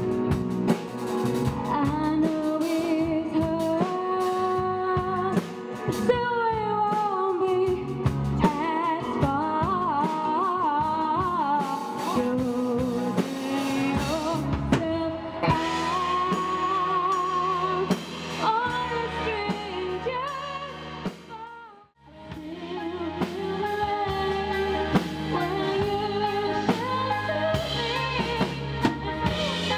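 A female singer singing a song with a band of electric guitar, bass guitar and drum kit. The music fades down to almost nothing about two-thirds of the way through and then comes back in.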